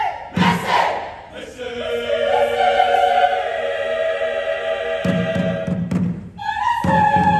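Mixed choir singing: a short loud shout-like burst about half a second in, then held chords, then low beats before the full choir comes back in loudly near the end.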